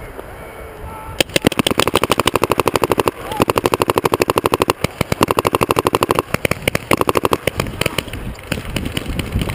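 Paintball markers firing rapidly, long fast strings of shots starting about a second in, broken by a few short pauses, thinning out to scattered shots near the end.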